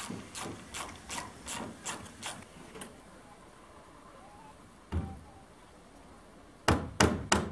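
A ratchet clicking in steady strokes, about two or three a second, as a long screw is driven through the roof sheeting into the wooden batten; it stops about three seconds in. One knock follows, and near the end a hammer starts driving nails into the wooden ridge board with quick, loud blows.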